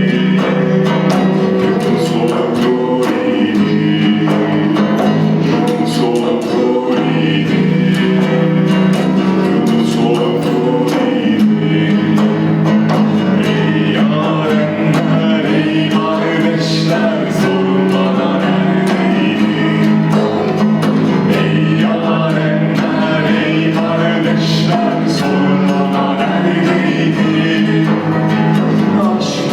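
Meditative music: a steady low drone with voices singing or chanting over it.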